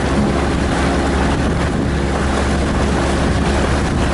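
Steady engine drone of a boat under way, with wind buffeting the microphone and rushing water.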